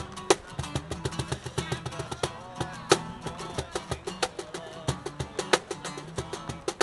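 Acoustic guitar and a hand-played wooden cajon performing together: strummed guitar chords over a busy rhythm of slaps on the cajon, a few strikes standing out louder than the rest.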